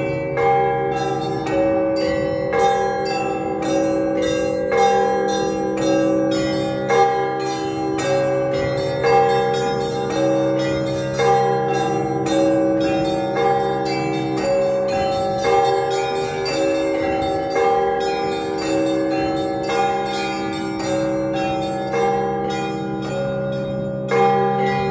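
Russian Orthodox church bells ringing a continuous rhythmic peal. Small bells are struck rapidly over a repeating figure on the middle bells, with long-ringing low bells and a heavier accent about every two seconds.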